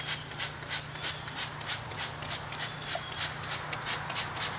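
Trigger spray bottle squeezed rapidly, a short hiss with each squirt at about four to five a second, with a faint steady high tone underneath.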